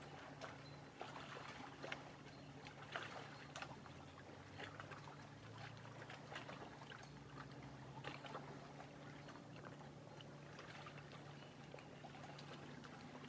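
Small lake waves lapping and splashing softly in irregular little slaps at the water's edge, with a faint steady low hum underneath.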